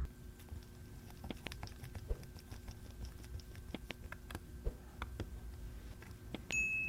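Faint, irregular small clicks and taps of watchmaker's tools on the parts of a pocket watch movement being taken apart, with a short, high metallic ring near the end.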